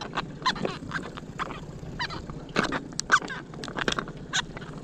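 Choppy lake water slapping and splashing against the aluminum hull of a jon boat in a string of short, irregular knocks, the loudest about three seconds in.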